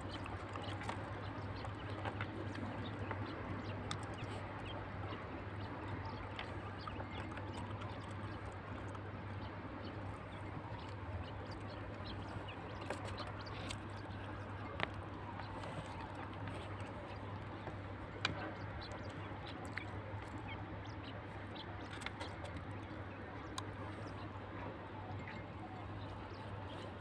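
Quail calling in a coop over a steady low hum, with a few faint ticks.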